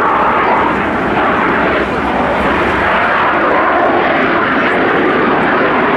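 JAS 39 Gripen fighter jet's single turbofan engine: loud, steady jet engine noise.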